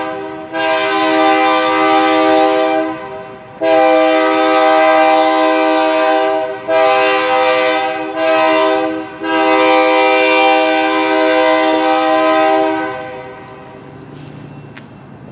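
Locomotive air horn sounding a chord in a grade-crossing warning sequence: two long blasts, two shorter ones, then a final long blast that ends about 13 seconds in.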